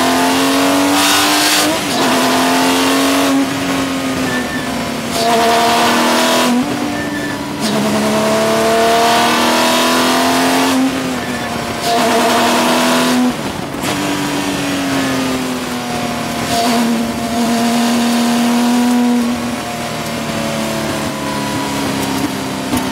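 Porsche 996 GT3 Cup's 3.6-litre flat-six racing engine running hard. Its pitch climbs through the revs and drops back at each gear change, with several brief lifts off the throttle where the sound dips.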